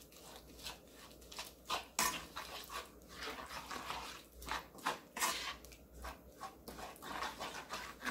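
Wooden spoon stirring a thick chili-paste seasoning sauce in a nonstick wok: a run of irregular short scraping strokes against the pan.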